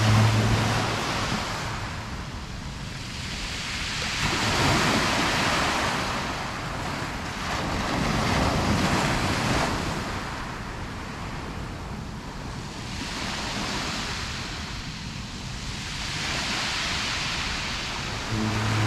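Small waves breaking and washing up a pebble beach, the surf swelling and falling about every four seconds.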